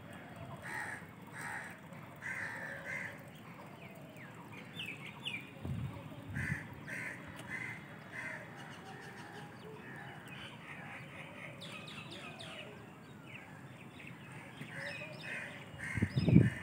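Birds calling outdoors: a harsh call repeated in runs, about two a second, with some higher chirps among them. A low thump near the end is the loudest sound.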